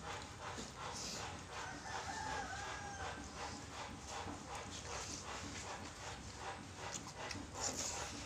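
Close-up eating sounds of instant noodle soup: wet slurping and chewing smacks in quick, irregular clicks. A faint, drawn-out pitched call sounds in the background about two seconds in.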